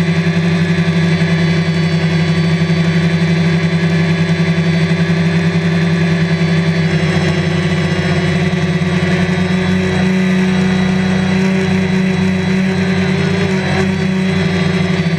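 Multirotor drone's electric motors and propellers whirring steadily in flight, heard from the camera mounted on the drone itself. The pitch shifts a little about ten seconds in.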